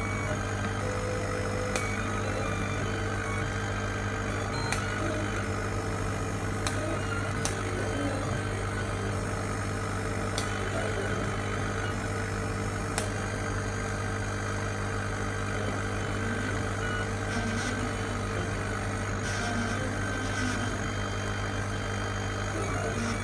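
Cheap 40 W CO2 laser cutter running as it etches 3 mm MDF: a steady mechanical hum, with a few sharp clicks here and there while the laser head moves over the sheet.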